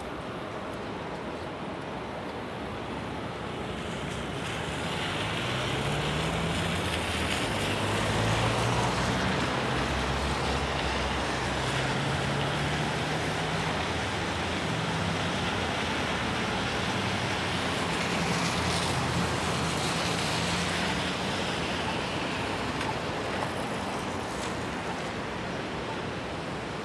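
Traffic on a rain-wet city street: tyre hiss on wet pavement swells after a few seconds, and a large vehicle's engine drones low through the middle, shifting in pitch.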